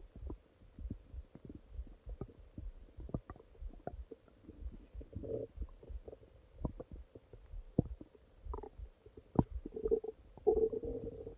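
Human stomach growling: a steady run of quick irregular gurgles, pops and low rumbles, with longer bubbling gurgles about five seconds in and again, loudest, near the end.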